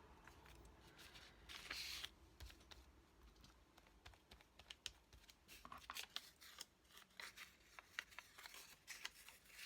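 Quiet handling of paper scraps: a short rustle about two seconds in, then a run of light taps, clicks and crinkles as the pieces are sorted.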